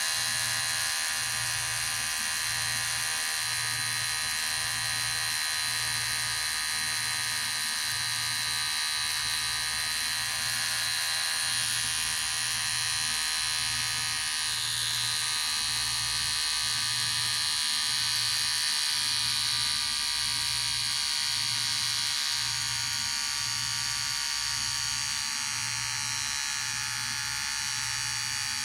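Electric hair clipper running steadily, a continuous high-pitched buzz with a low hum underneath that pulses about once a second.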